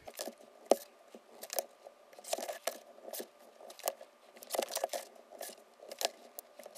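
A ruler and pencil being handled on mat board: the ruler is set down and shifted, and the pencil marks along it. The result is irregular light taps, clicks and short scrapes, with a sharper click about a second in.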